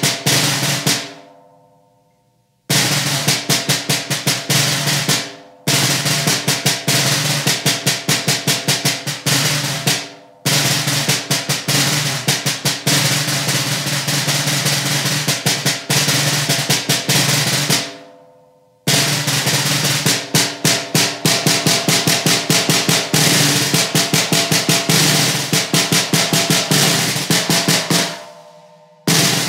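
Snare drum played with wooden sticks: a solo etude in phrases of rolls and fast strokes. The phrases are broken by short pauses where the drum rings out, the longest near the start and another a little past the middle.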